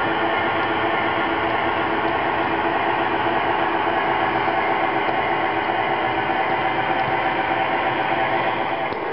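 O-scale model freight train rolling past, a steady whir and rumble of its metal wheels on the track with a continuous hum.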